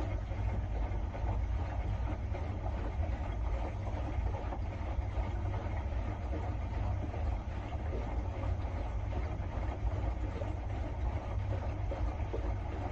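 Washing machine running with a steady low rumble and continuous rattly noise.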